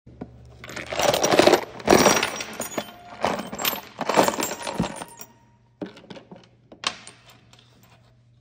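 Assorted steel bolts, nuts and washers poured out of a plastic tray onto a tabletop, a loud jangling metal clatter lasting about four seconds. A few separate clinks follow as single pieces settle or are set down.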